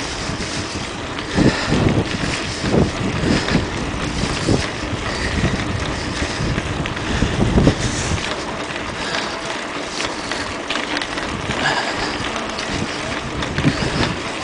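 Wind buffeting the microphone of a camera riding on a moving bicycle, with the bike rattling and knocking over the paving, the rumbling heaviest in the first half.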